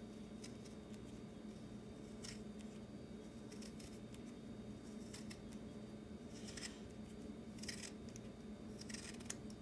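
Lemon rind being cut off the fruit with a blade: a series of short, faint rasping strokes about every second or so, over a low steady hum.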